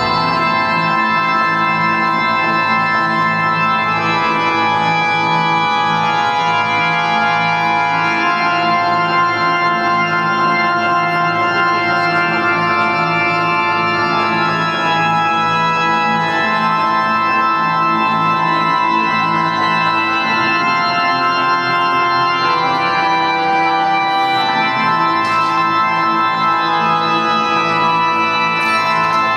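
Organ music with long, slowly changing held chords: the soundtrack of a sound-and-light show.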